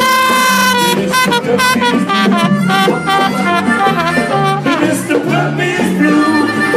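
Live blues band playing an instrumental break between sung lines: harmonica and trumpet lead over strummed acoustic guitar and a steady bass line, opening on a long held note.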